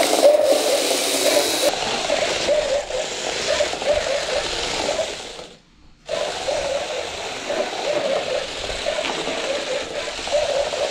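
Toy RC stunt robot dog's small electric wheel motors whining as it drives around on its wheeled legs across a concrete floor, the pitch wavering as it speeds up and slows. The sound cuts out briefly a little past halfway, then carries on.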